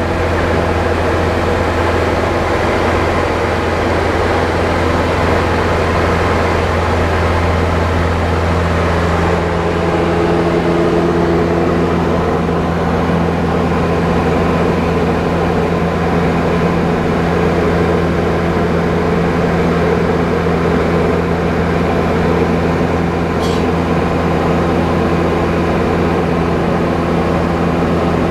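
Diamond DA40 light aircraft's piston engine and propeller, a steady drone heard from inside the cabin in flight. The tone shifts slightly about ten seconds in.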